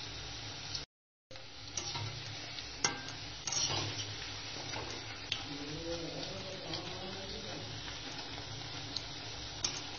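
Bhajiya fritters deep-frying in hot oil in a kadhai, a steady sizzle, with a slotted spoon stirring them and clinking against the metal pan several times. The sound drops out completely for a moment about a second in.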